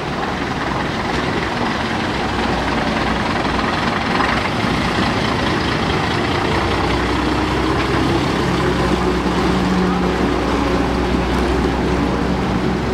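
Diesel engine of a half-cab, open-platform London RT-type double-decker bus, running steadily as the bus pulls slowly past. The low drone grows a little fuller about halfway through.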